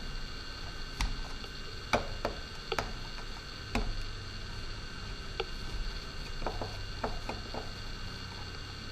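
Small sharp clicks and taps of a screwdriver and small screws on the plastic shell of a DJI Phantom 4 Pro drone as the landing-gear screws are worked loose. The clicks come singly about a second apart, then several in quick succession near the end, over a steady electrical hum.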